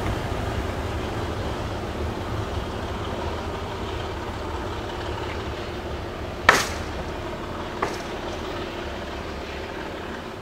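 Low rumble of a train that has passed, fading slowly into the distance, with two sharp clicks a little over a second apart about two-thirds of the way through.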